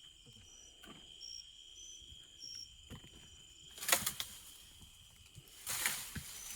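Steady high buzz of crickets or other insects, with faint repeated chirps over it. Two short bursts of rustling-type noise break in, about four seconds in and again near the end.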